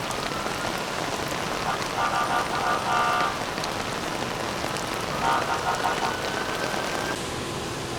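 Heavy, torrential rain pouring down in a steady hiss. A faint high whine rises slowly underneath, and a brief pitched sound cuts through twice, about two and five seconds in.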